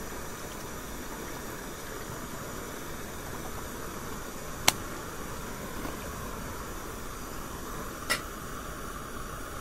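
Pressurised paraffin burner of a 1915 Primus Model 210 stove running at full heat with a steady rushing hiss. A sharp click comes about halfway through, and a short knock near the end as the saucepan is set down on the stove's pot stand.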